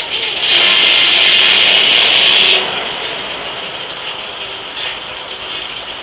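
Large antique circular sawmill blade ripping through a burr oak log: a loud, even rasp for about two seconds that stops abruptly as the blade leaves the cut. The mill keeps running more quietly afterwards.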